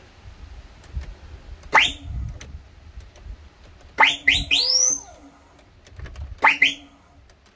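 Turkish truck whistle horn sounding short, sharp rising whistles. There is one about two seconds in, a quick run of three or four overlapping whistles around four seconds in, and another near the end.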